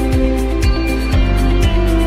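Background music: a gentle instrumental track with sustained notes and a steady beat of about two low drum hits a second.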